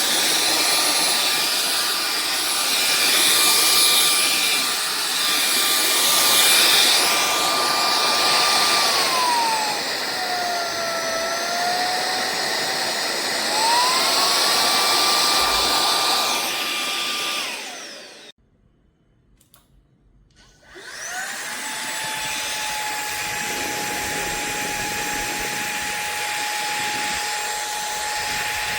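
SunSare X7A cordless stick vacuum running with a high motor whine over the rush of its airflow. In the middle the pitch sags and climbs back. Then the motor winds down and stops, and about two seconds later it starts again, its whine rising quickly and settling at a lower steady pitch.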